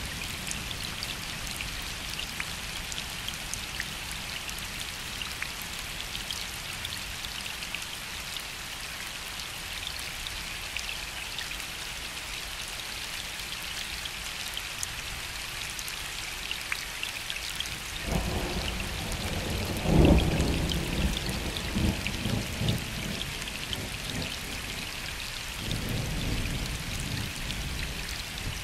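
Gentle rain falling steadily on a lake, a dense patter of drops. About two-thirds of the way through, distant thunder rumbles in, is loudest in one sharper crack, and rolls on for a few seconds. A second low rumble of thunder starts near the end.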